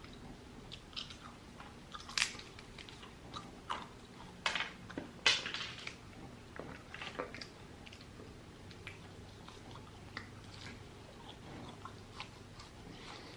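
A person chewing and biting food close to the microphone, with a few sharp, crisp crunches clustered in the first half, then softer chewing.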